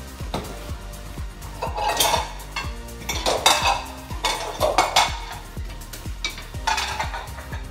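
Dishes and silverware clinking and clattering as a dishwasher is unloaded, in several bursts a second or two apart. The clatter sits over background music with a steady beat.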